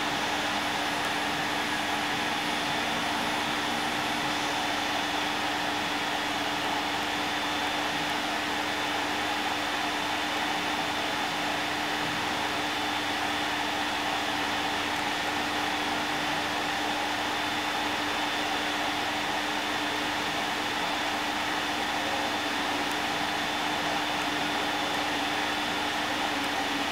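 Steady mechanical whir with a constant low hum and a fainter high whine, unchanging throughout.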